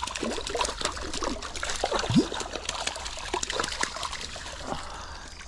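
A hooked trout thrashing and splashing at the surface of a small stream, with many quick splashes and drips over the water's trickle.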